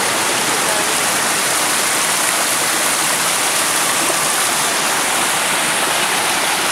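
Small forest stream tumbling over rocks in a little cascade: a steady, loud rush of splashing water.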